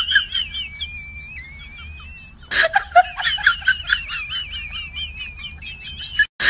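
Beluga whale whistling and chirping: high, wavering whistles and quick repeated chirps, with a long gliding whistle in the first couple of seconds. A short splash of water breaks in about two and a half seconds in.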